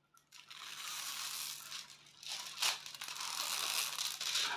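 Crinkling and crackling of the plastic cover film on a sticky diamond painting canvas as it is handled, starting about half a second in, with a sharp flare a little past the middle.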